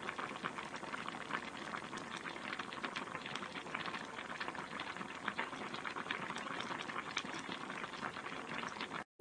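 A pan of broth bubbling at a simmer, a dense steady crackle of many small pops. It cuts off suddenly just before the end.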